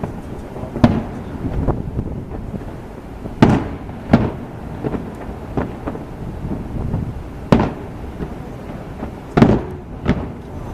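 Aerial fireworks display: a rapid, irregular series of bursting bangs over a continuous low rumble, with the loudest bangs about 1, 3.5, 4, 7.5 and 9.5 seconds in.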